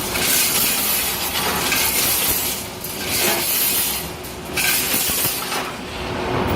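Automatic rebar wire mesh welding machine running through its cycle. Sharp bursts of hissing air come about every two seconds over a steady mechanical clatter and hum, with light metal clinks.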